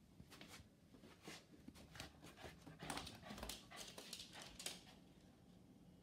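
A small terrier-type dog making short, faint, irregular noises with no barking, thickest about halfway through, then dying away about a second before the end.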